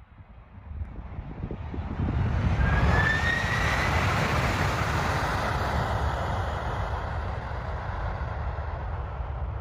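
A Boeing 767 jet airliner's engines spooling up on the landing roll after touchdown on a snow runway. The sound swells sharply about two seconds in, with a brief rising whine, then holds as a loud, steady rush that eases slowly.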